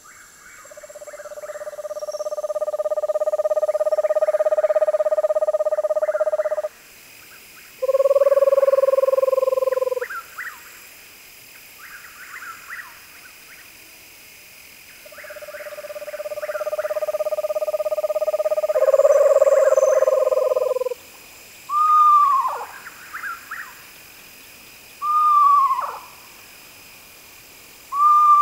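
Screech owls calling: long, even trills that swell over several seconds, with shorter trills at a slightly different pitch, one overlapping the end of a long trill. Near the end come three short whinnies, each falling steeply in pitch, about three seconds apart.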